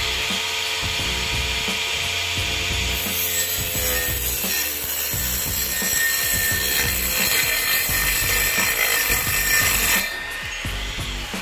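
Homemade circular saw with an 895 DC motor running, its 4-inch blade whining, then cutting through a white board with a loud rasping hiss from about three seconds in. The cutting noise stops suddenly near the end, and the motor's whine rises again as it is unloaded.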